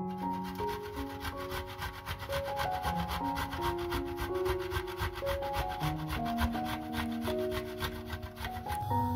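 A garlic clove rubbed up and down the fine teeth of a stainless steel box grater: quick, even scraping strokes that stop just before the end. Soft background music with held notes plays underneath.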